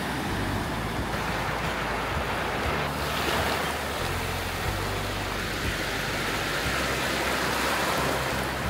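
Sea waves breaking and washing up a sandy shore in a steady wash that swells a little about three seconds in.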